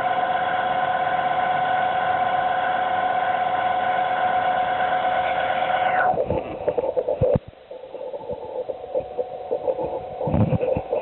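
Hitachi air conditioner making an abnormal noise: a steady hum-whine of several fixed tones. It cuts off about six seconds in, followed by a few knocks and clicks in a quieter stretch.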